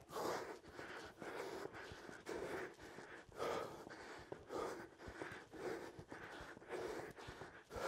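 A man breathing hard in short, forceful breaths, about one a second, from the exertion of fast mountain climbers, with light taps of his feet on the rubber gym floor.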